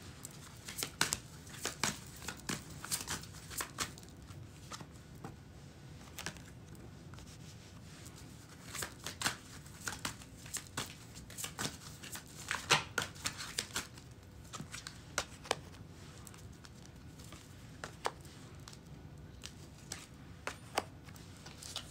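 A deck of tarot cards being shuffled by hand: irregular runs of short card snaps and slaps, with lulls between runs.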